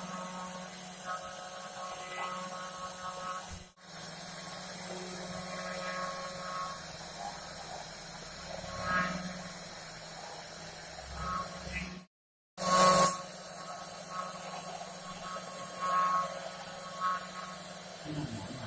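DIY CNC router spindle running and cutting foam: a steady low hum under a higher whine that swells and fades every second or two. The sound breaks off briefly twice, the second time followed by a short loud burst.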